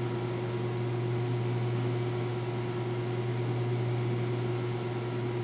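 Steady low hum of room background noise, with a fainter, higher steady tone above it and light hiss.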